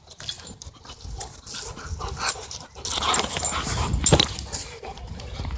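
Dogs playing rough, with short scuffling and dog sounds that come and go, busiest about three to four seconds in.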